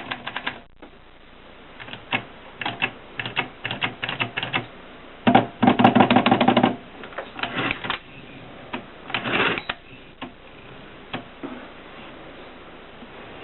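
Groma typewriter being typed on: keys clacking against the platen in quick bursts, with a louder, denser rattling run about five to seven seconds in and a shorter one near nine seconds. Only a few scattered clicks come in the last few seconds.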